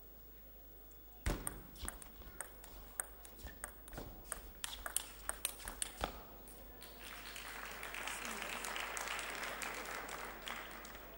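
Table tennis rally: sharp clicks of the ball off the bats and table, trading back and forth for about five seconds, starting with a loud first hit. The crowd then applauds the point, the clapping swelling and fading near the end.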